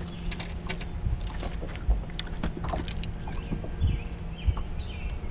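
Scattered clicks, knocks and a few dull thumps of a bass being handled and unhooked on a bass boat's deck, over a low rumble of wind on the microphone.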